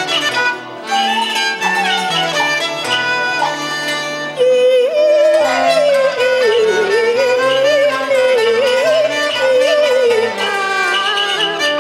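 Cantonese opera music: an ensemble led by a bowed fiddle over a stepping bass line. A long, wavering melodic line comes in strongly about four seconds in.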